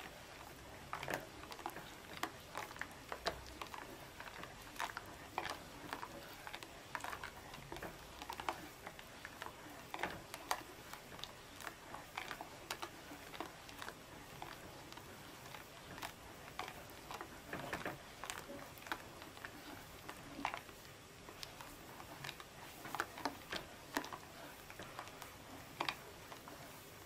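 Silicone spatula stirring and scraping thickening lemon custard cream in a stainless steel saucepan: irregular soft clicks, taps and squelches of the spatula against the pan and through the thick cream, a few a second.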